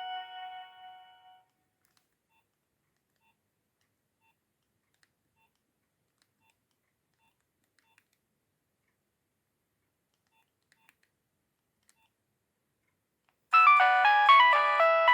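Nokia 6610 mobile phone ringtones: one melody ends with its last notes fading out in the first second and a half. A long quiet stretch with faint short beeps follows, then a new polyphonic ringtone starts loudly about 13.5 seconds in.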